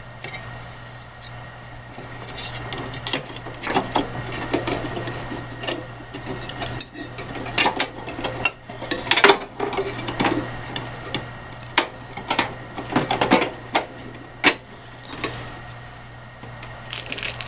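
Small metal clicks, clatters and rustles as a sheet-metal bracket and its wires and push-on connectors are handled and fitted back in place inside an opened microwave oven, over a steady low hum.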